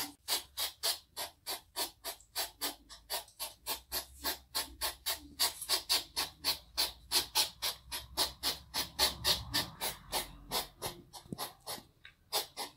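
Hedgehog huffing: a fast, even run of short breathy puffs, about four a second.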